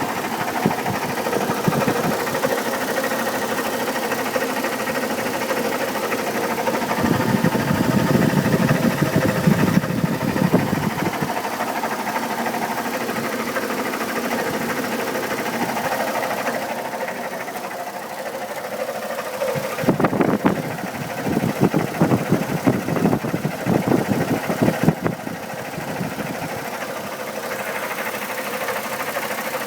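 2002 Chevrolet Trailblazer's 4.2-litre inline-six idling with a loud, rapid ticking knock, which the owner suspects comes from the engine fan. The knocking grows louder twice, for a few seconds each time.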